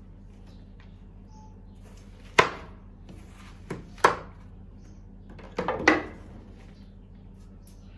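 Kitchen knife chopping through watermelon and knocking on a wooden cutting board: three sharp chops about a second and a half apart, the last one doubled, over a steady low hum.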